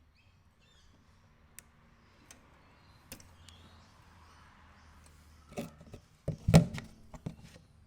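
A lawn mower's fuel line being worked off the carburettor to drain the tank: a few light clicks over a faint hiss, then several louder knocks and a clunk near the end.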